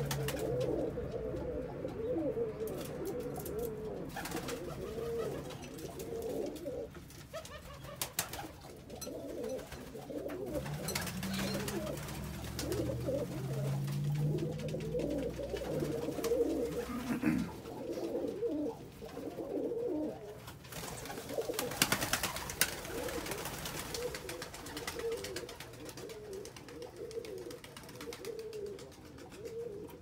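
Domestic pigeons cooing continuously, several birds at once, with occasional quick wing flaps as birds fly in and land.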